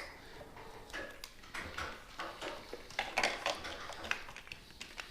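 Small metal parts clinking and rattling as a motorcycle's left handlebar control is worked off by hand: a string of irregular light clicks and clatters, busiest about three seconds in.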